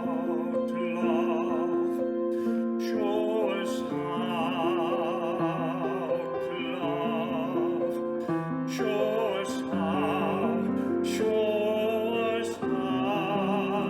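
Slow music for the offertory: a solo voice singing long held notes with strong vibrato over piano accompaniment.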